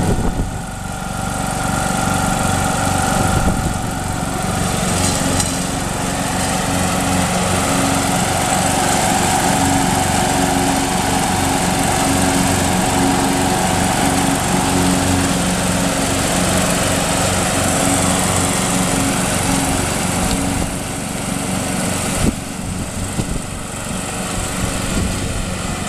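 MTD ride-on lawn tractor's engine running at a steady speed as the tractor drives over the lawn. It dips in loudness briefly near the end, with a single knock.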